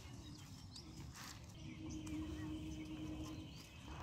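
Spinach plants rustling as they are pulled up by hand, over birds chirping. About halfway through, a steady low hum runs for a couple of seconds.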